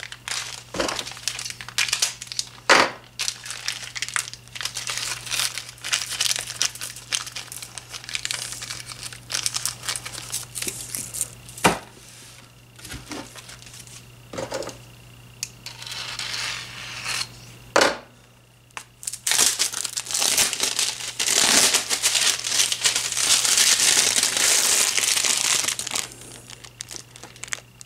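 Plastic packaging crinkling and rustling as ceiling-fan parts and bags of screws are unpacked and handled, with scattered sharp clicks and knocks. The rustling gets denser and more continuous in the second half, over a steady low hum.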